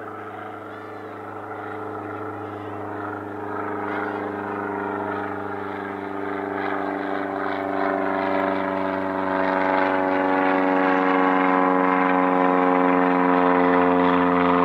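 Boeing 777's twin jet engines running at low taxi thrust, a steady whine over a rushing hum. It grows steadily louder as the airliner turns to face the engine intakes toward the listener.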